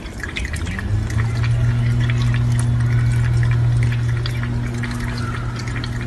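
Water running from a kitchen tap into a stainless steel sink, with a steady low hum and many small wet clicks of a cat lapping water.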